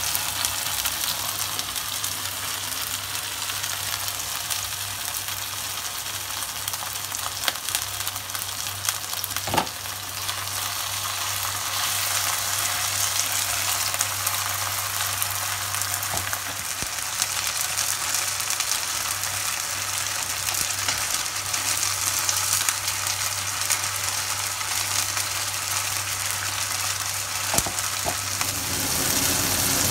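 Oysters and sliced shallots sizzling in hot oil in a frying pan as they are stirred with a spatula. A few sharp clicks of the spatula on the pan can be heard.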